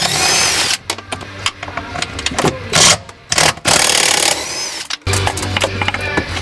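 Ratchet and socket working the pedal assembly's mounting nuts off the firewall: bursts of rapid mechanical whirring and clicking. Music comes in about five seconds in.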